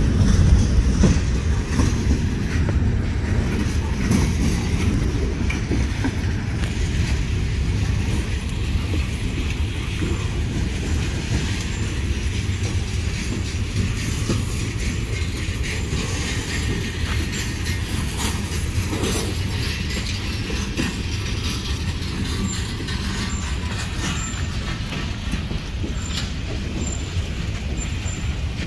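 Freight train cars (boxcars, a tank car and gondolas) rolling past on the rails, a steady rumble of wheels on track that eases off slowly.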